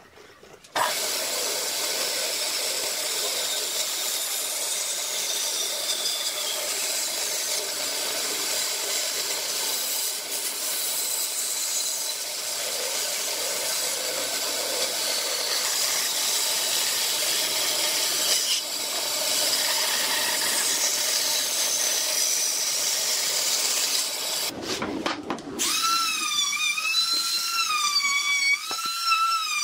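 Band saw running and cutting through a pine block, a steady machine noise that sets in about a second in and lasts over twenty seconds. Near the end a handheld trim router takes over, a high whine that wavers up and down in pitch as it cuts the wood.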